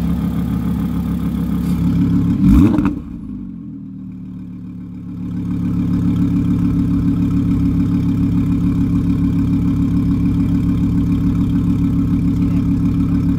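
Audi R8 V10 Plus's 5.2-litre V10 idling, with one short, sharp rev blip about two and a half seconds in. The sound then drops and goes muffled for a couple of seconds before the steady, evenly pulsing idle comes back.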